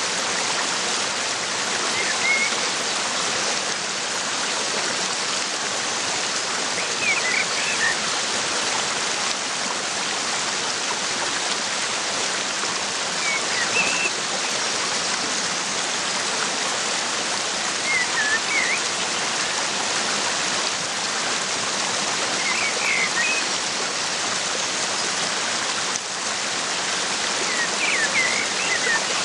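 Steady rush of a waterfall, with short bird chirps every few seconds.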